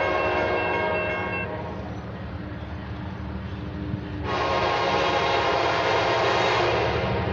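Air horn of an Amtrak EMD F59PH diesel locomotive sounding for the grade crossing as the train approaches: one chord blast ends about a second and a half in, and a longer, louder blast starts about four seconds in. A steady low rumble from the approaching train runs beneath.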